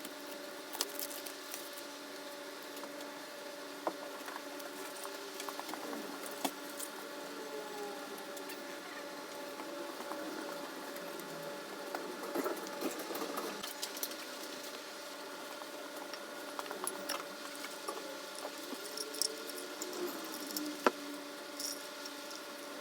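Scattered light metallic clicks and clinks of hand tools and engine parts being handled while a motorcycle engine's top end is put back together, over a steady hum. The sharpest click comes near the end.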